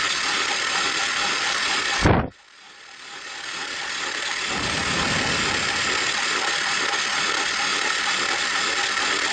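Steady mechanical running noise of a motorized toy train. About two seconds in there is a loud knock and the sound cuts out abruptly, then fades back up over the next couple of seconds.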